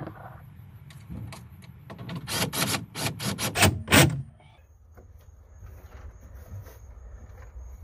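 Cordless drill/driver run in a string of short loud bursts, driving the bolts of a boat's rotary steering helm into its mount. After about four seconds the bursts stop and only faint handling ticks remain.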